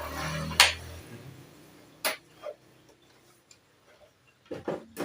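Sharp clicks and taps from hand work on the scooter's plastic upper headlight cowl: the loudest about half a second in, another about two seconds in, and a few quicker ones near the end.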